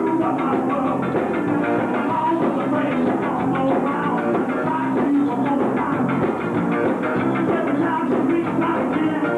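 Ska band playing live: electric guitar over bass and drums, with a steady beat that runs without a break.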